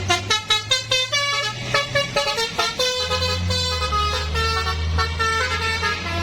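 Basuri V3 multi-tone 'telolet' bus horn playing a tune: a quick run of short notes, then longer held notes from about three seconds in, over a steady low hum.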